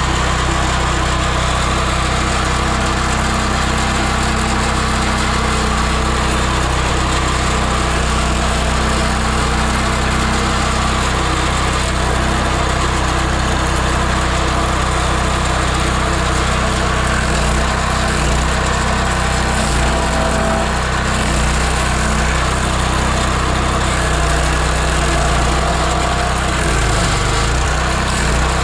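Petrol engine of a Victory GSF-1500 stump grinder (420 cc, 15 hp) running steadily at speed. About halfway through, its low note starts to waver and dip.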